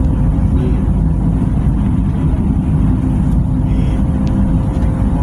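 Passenger train running along the track, heard from inside the carriage: a steady low rumble with a faint constant hum over it.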